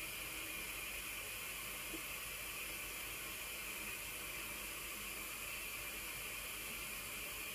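Thin stream of water running from a bathroom sink faucet into the basin, a steady hiss.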